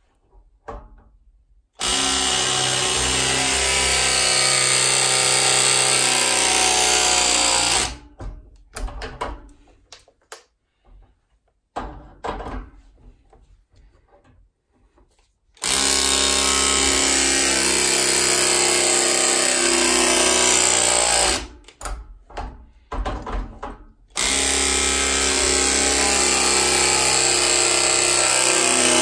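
Battery-powered pipe press tool crimping copper press fittings onto copper pipe. It runs three times, each a steady motor drone of about six seconds, with short handling clicks between the runs.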